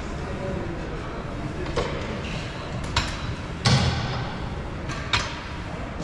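Four scattered knocks and thuds of gym equipment in a large hall, the loudest a heavy thud a little past halfway.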